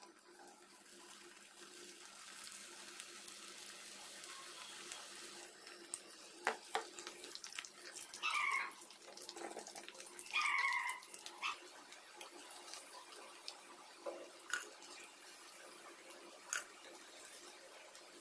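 Batter-coated baby corn deep-frying in hot oil: a steady sizzle that builds over the first few seconds as the pieces go in, with a few clinks of a metal slotted spoon against the pan. Two short high-pitched squeals stand out partway through.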